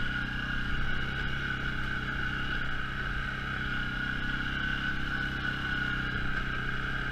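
Suzuki KingQuad 500 ATV's single-cylinder engine running at a steady pace in low range under the load of hauling firewood, with a steady high whine over the engine note.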